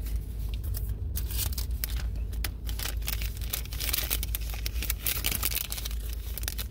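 Plastic trading-card pack wrapper crinkling and rustling, with many small crackles as cards and wrapper are handled, over a low steady hum.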